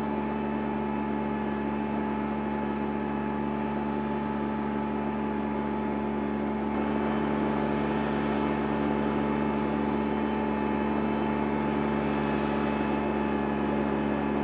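Ventrac 4500 compact tractor's engine running steadily under load while its front power rake churns through loose soil and sod. The sound grows somewhat louder and rougher about seven seconds in.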